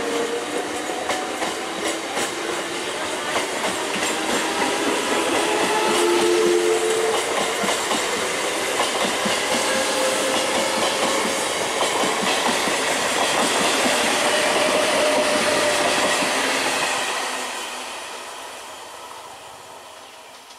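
Brand-new ICF-built EMU local train running past, its electric motors whining with a pitch that climbs at first, over a steady clatter of wheels on the rails. The sound fades away in the last few seconds.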